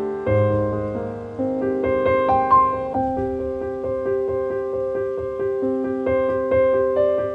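Background piano music: a gentle, even run of notes with sustained chords underneath.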